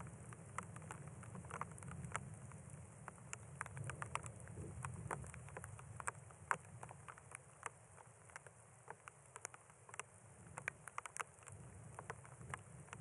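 Scattered raindrops pattering close by as irregular sharp ticks, over a low wind rumble that eases off about halfway through and builds again near the end.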